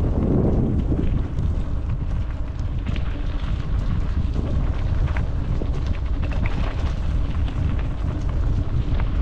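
Wind buffeting a helmet-mounted GoPro microphone while a mountain bike rolls along a dirt trail: a steady low rumble with scattered clicks and rattles from the bike over the ground.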